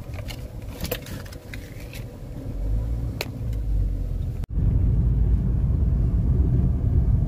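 Car cabin noise while driving: a steady low rumble of engine and road, with a few light clicks in the first half. About four and a half seconds in, the sound cuts out for an instant and comes back with a louder rumble.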